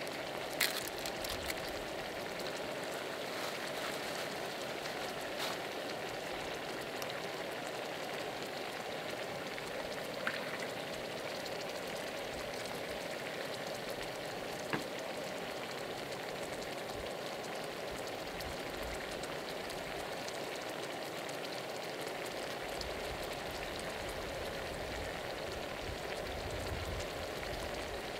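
Olive oil sizzling steadily in a pan as an ajillo simmers, with a few faint pops.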